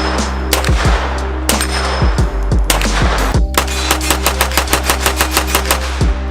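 Kriss Vector 9mm submachine gun firing: a few separate shots ringing out over the first three seconds, then a fast, even string of rapid shots from about halfway in. Background music with a steady bass plays underneath.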